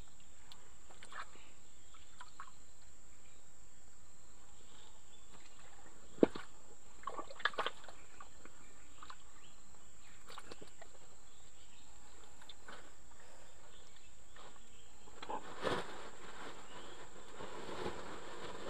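A steady high-pitched insect drone, with one sharp knock about a third of the way in, a few lighter taps just after it, and a short cluster of knocks near the end.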